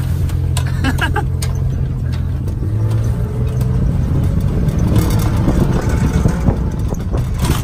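Truck engine running steadily at low speed while towing a dune buggy on a strap across a bumpy field, with a few short knocks.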